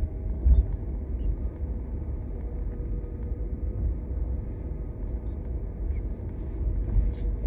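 Low, steady road rumble while a 2021 BMW 330e is being driven, with faint, short high-pitched blips scattered irregularly through it. These are candidates for the intermittent beeping whose cause is unknown.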